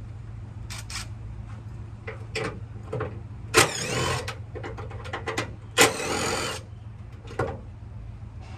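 Scattered clicks and knocks of body parts and plastic trim being handled on a pickup's front end, with two longer scraping, squeaking rubs about three and a half and six seconds in, over a steady low hum.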